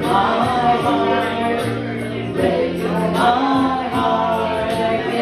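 A woman singing live into a microphone through a bar's PA, over instrumental accompaniment with a steady beat of about four pulses a second.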